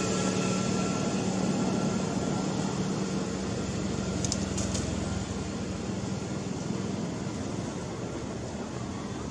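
Steady low hum and rumble from a machine or engine, slowly fading, with two brief high ticks about four seconds in.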